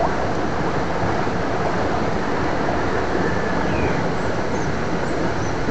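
Steady rushing noise with no clear pitch, level and unbroken.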